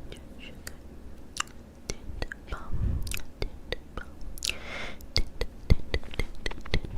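Close-miked wet mouth sounds: a run of lip smacks and tongue clicks, coming faster in the last couple of seconds, with a short breathy whisper about halfway through.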